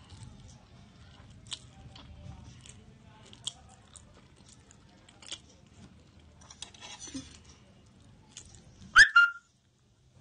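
A person eating fried instant noodles: soft chewing and wet lip smacks with slurps of noodle strands. Near the end comes one short, loud squeak that rises in pitch, the loudest sound here.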